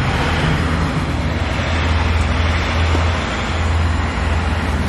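Steady low rumble with an even hiss of street traffic noise, swelling and easing slightly.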